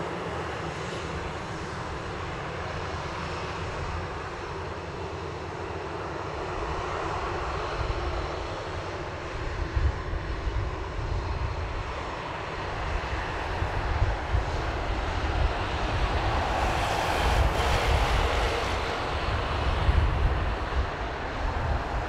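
Boeing 737-800's CFM56-7B jet engines running at low power as the airliner taxis, a steady rush of engine noise. A low rumble grows stronger in the second half.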